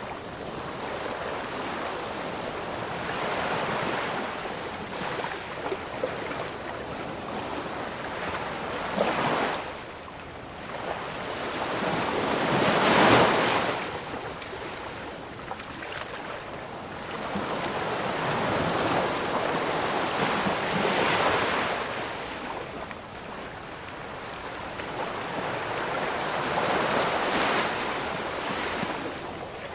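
Ocean surf: waves rolling in and breaking, a rushing noise that swells and falls back every few seconds. The loudest wave breaks about halfway through.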